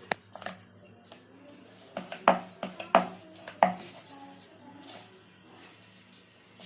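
Rolling pin knocking and rolling as chapati dough is rolled out: a series of short, sharp knocks in the first four seconds, then a quieter stretch.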